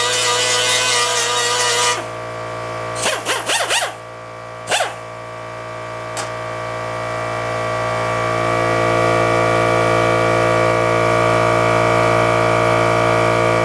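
Handheld pneumatic die grinder whining at speed, then cutting out about two seconds in. A few short bursts follow as the trigger is blipped, and then it runs steadily again, growing louder over several seconds and holding.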